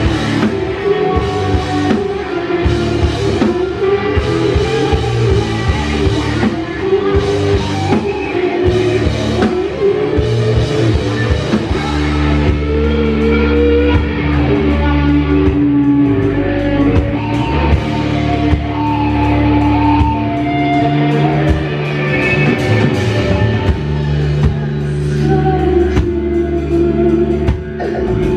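Rock band playing live: electric guitar, bass guitar and drum kit, with a singer's voice over them.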